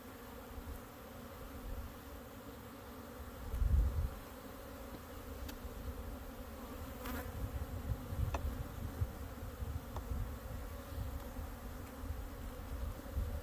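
Honeybee colony buzzing steadily from an opened hive, a dense, even hum. A low thump comes about four seconds in, and a few sharp clicks are heard later.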